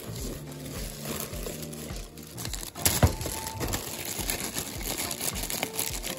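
Plastic packaging crinkling as hands pull out bubble wrap and work open a zip-lock bag, with a sharp crackle about three seconds in. Background music with a steady beat plays underneath.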